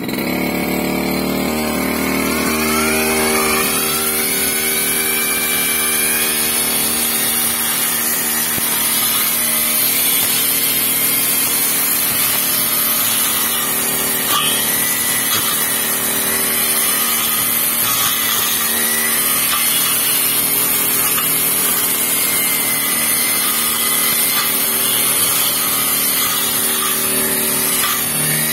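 TASCO 328E two-stroke brush cutter engine revving up over the first few seconds, then running at high speed with small rises and falls, its spinning metal blade cutting grass and weeds.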